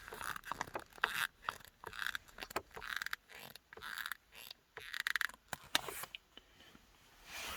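Leather gear-lever boot of a Dacia/Renault Duster 2 being worked by hand, squeaking in about seven separate rubbing strokes, roughly one a second, with small clicks between them. The squeak is the label sewn into the leather rubbing against itself, the source of the squeak heard when shifting into 5th gear.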